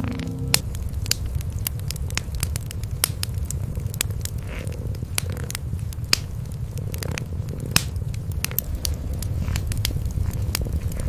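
Wood fire crackling in a fireplace, with frequent irregular sharp pops, over a steady low rumble of cats purring.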